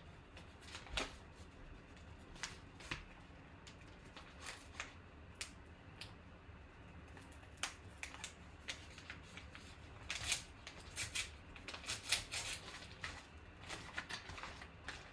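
Paper wrapper of a trading-card case topper being peeled and torn open by hand: scattered crinkles and rustles, busiest about ten to thirteen seconds in.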